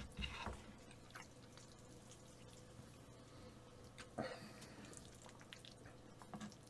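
Faint wet, sticky sounds of wide kalguksu noodles coated in black-bean sauce being lifted and stirred with chopsticks: a few soft squelches, the clearest about four seconds in.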